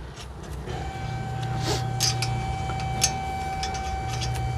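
Light metal clinks and taps as hub puller spacers and lug nuts are fitted onto the wheel studs, over a steady hum. A steady high-pitched tone comes in about a second in and holds almost to the end.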